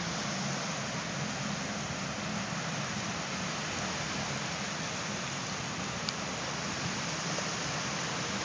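Steady, even wash of ocean surf and wind noise on a beach.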